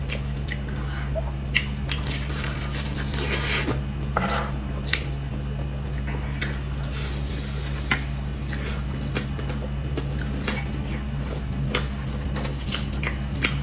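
Close-up eating of soft cream cake: small plastic spoons clicking and scraping against the cake and teeth, with soft, wet mouth sounds, over a steady low hum.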